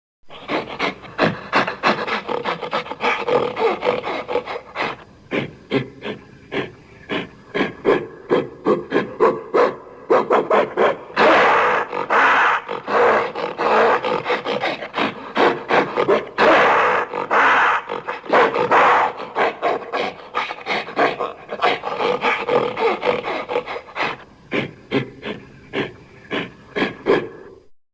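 Long run of rapid, rasping, grunting gorilla-like vocal sounds, several pulses a second. It grows louder in the middle.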